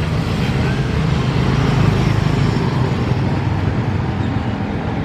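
Road traffic: a motor vehicle's engine running close by with a low rumble, swelling to its loudest about two seconds in and then easing off.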